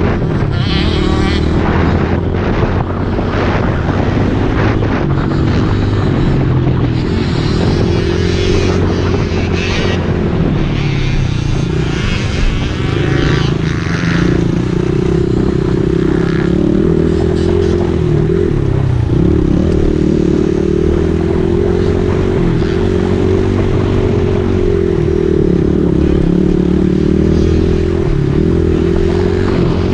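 Motocross dirt bike engine heard up close from the bike itself, running under way with the revs rising and falling again and again as it works through the track.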